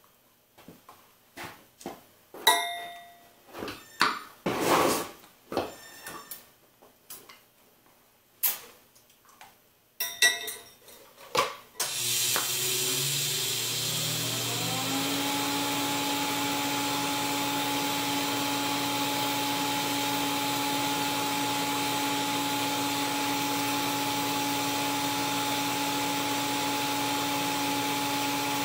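Scattered clicks and knocks of gear being handled. About twelve seconds in, a steady hiss starts as a TIG arc is struck on carbon steel pipe, joined by a motor hum that rises in pitch over a couple of seconds and then holds steady.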